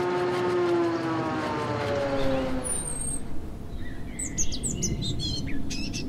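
An engine-like hum slides down in pitch and fades out by about halfway. A high chirp sweeps down near the three-second mark, and birds chirp in short calls through the last two seconds.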